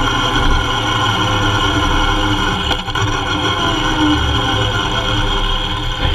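Kawasaki Z750's inline-four engine running steadily while riding, heard close up from low beside the engine, with a brief dip in level about three seconds in.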